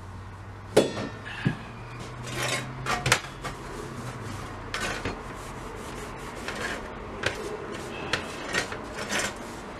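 Metal gumball machine parts clinking, knocking and scraping on a work table as they are handled and cleaned of old paint and stripper, in irregular sharp clicks with short rubbing scrapes between them.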